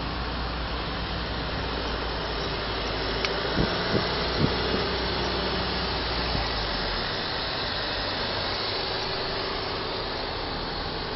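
Steady road and wind noise of cars driving at highway speed, heard from inside a moving car's cabin. A few short knocks come about four seconds in, and the low rumble eases off a little past halfway.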